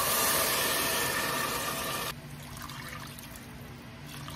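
Water poured from a cup into a hot pot of sautéed ground meat, hissing loudly for about two seconds, then a quieter pouring as the liquid goes in.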